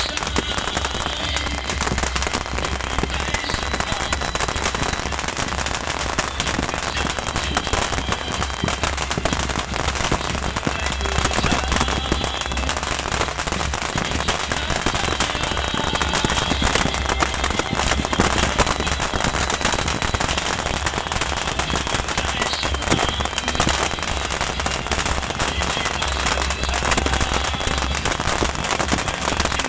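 Beehive fireworks going off: a dense, unbroken crackle of many small rockets and firecrackers firing rapidly at once, holding steady throughout.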